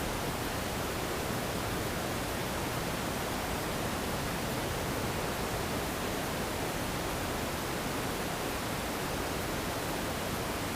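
A steady, even hiss with no other sounds, unchanging in level.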